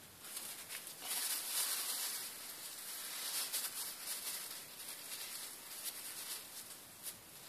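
Paper tissue rustling and rubbing against a dental curing light's light guide as excess glue is wiped off, a dry scratchy rustle with a few small clicks, loudest from about a second in.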